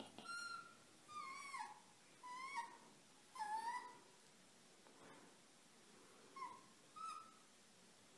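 Fox kit giving about six short, high whining squeaks while its belly is tickled, some calls falling or dipping and rising in pitch.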